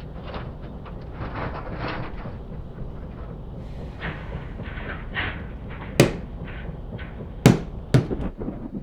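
Steady low rumble with scattered lighter clatter, then three loud, sharp knocks or bangs, about six, seven and a half and eight seconds in.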